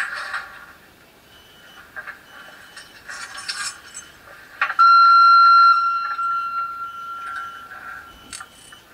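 Sound decoder of a PIKO model of the SBB RBe 4/4 electric railcar playing its sound effects through the model's small speaker: a few short hissing bursts, then about five seconds in a single loud, high, steady tone held for about a second that trails off more quietly over the next few seconds.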